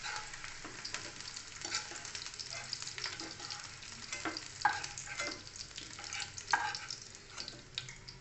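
Onion pieces frying in hot oil in a non-stick kadhai while a steel spoon scoops them out, scraping and clinking against the pan and the plate over a steady sizzle, with a couple of sharper clinks partway through.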